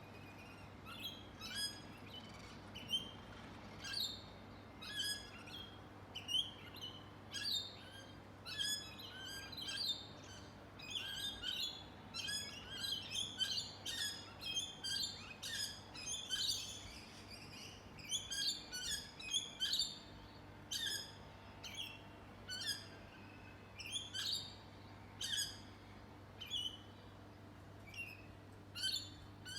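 Birds chirping in quick, short repeated calls, several overlapping, busiest through the middle.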